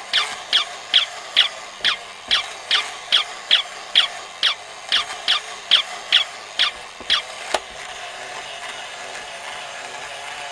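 Battery-powered walking toy puppy: its small motor and gears whir while it gives short, high electronic yips, about two and a half a second, each falling in pitch. The yips stop with a click about seven and a half seconds in, leaving only the motor whirring.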